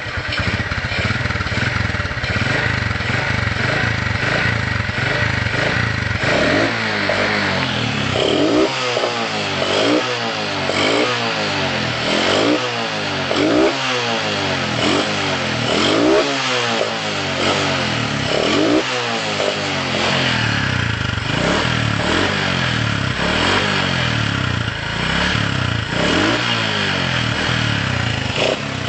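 Motorcycle engine with a carburettor that snores (ngorok). It idles steadily, then from about six seconds in it is revved again and again in short throttle blips that rise and fall in pitch.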